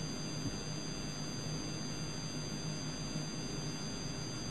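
Steady hiss with a constant low hum: the background noise of an old lecture recording, with no speech.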